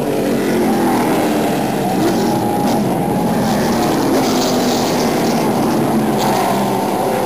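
NASCAR stock cars' V8 engines running at racing speed as a pack passes the grandstand: a loud, continuous drone with engine pitch rising and falling as individual cars go by.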